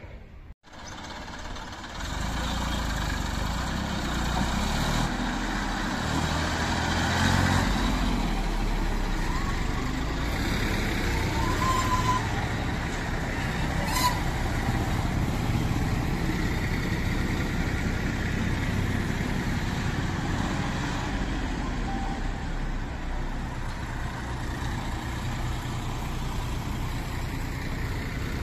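Massey Ferguson tractors pulling trolleys loaded with soil drive past one after another, their diesel engines running steadily under load. The engine noise starts about two seconds in.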